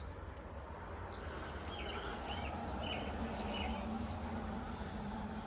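A small bird chirping over and over, one short high chirp about every three-quarters of a second, with a few lower, softer notes joining in the middle.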